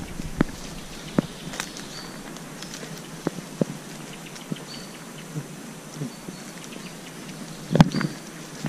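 Footsteps crunching through dry pine needles and twigs: scattered cracks and snaps, with a louder cluster of snaps near the end. A few short, high bird chirps come in between.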